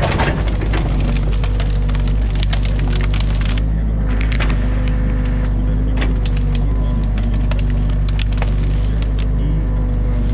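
Excavator's diesel engine running steadily while its bucket rakes through thick brush and sticks, with many sharp cracks and snaps of breaking branches.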